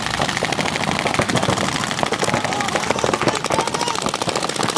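Several paintball markers firing rapidly at once, a continuous stream of overlapping sharp pops.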